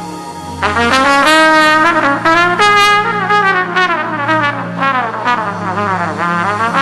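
Solo trumpet playing fast runs that sweep up and down, with bent and sliding notes, over steady held low accompaniment notes.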